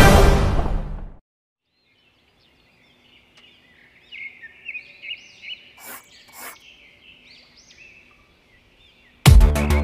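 Music fades out within the first second; after a short silence, faint bird chirps repeat for several seconds with two sharp clicks among them. Loud electronic music with a heavy beat cuts in near the end.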